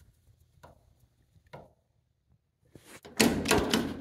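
Two faint clicks from a screwdriver at the extractor lid's safety interlock switch. About three seconds in comes a loud metallic clatter and thunk as the stainless-steel extractor lid is shut and its actuator tongue slides into the interlock switch.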